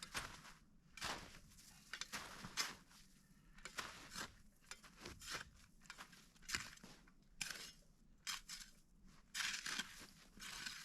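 Slow, irregular crunching footsteps.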